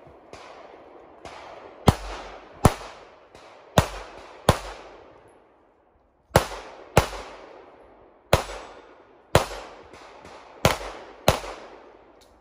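Handgun shots on an IPSC practical shooting stage: about ten loud cracks, mostly in quick pairs, each trailing off in an echo, with fainter shots in the first couple of seconds and a short break in firing near the middle.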